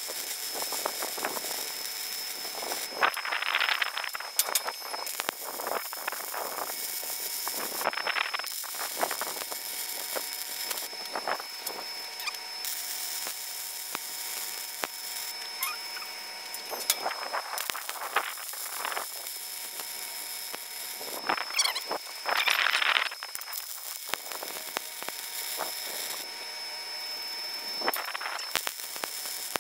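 Wire-feed welding arc crackling and spitting steadily as a bead is run joining a steel base plate to a square steel tube column, with a louder hiss briefly about three seconds in and again about twenty-two seconds in.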